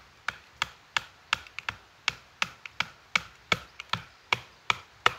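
Wooden baton striking the spine near the tip of an ESEE Laser Strike fixed-blade knife in quick, even blows, about three a second, each a sharp wooden knock. The blows drive the blade down through a log to split it, and the knife is going through easily.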